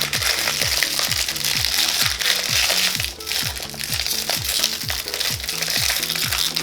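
Plastic wrapping crinkling and crackling as a toy package is handled and unwrapped, over background electronic music with a steady beat.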